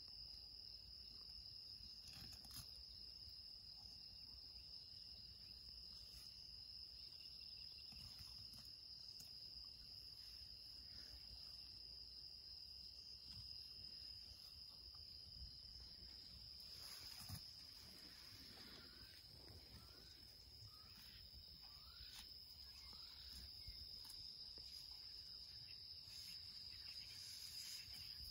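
Faint evening insect chorus: a steady high continuous trill, with a second, lower trill that fades out about halfway through.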